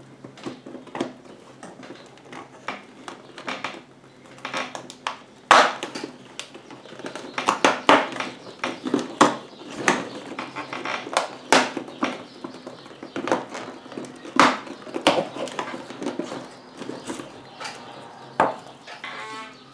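Fingers picking, prying and scraping at a cardboard advent calendar door, with irregular clicks, knocks and rubbing. The sharpest knock comes about five and a half seconds in.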